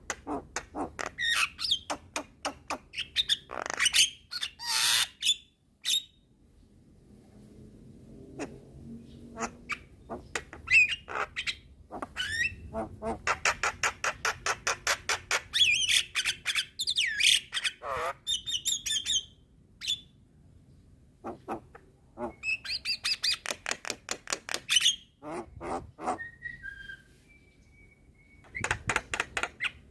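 Javan myna (jalak kebo) singing in full voice: long rapid runs of harsh, clicking squawk notes at about eight to ten a second, broken by short pauses, with a few brief whistled notes near the end.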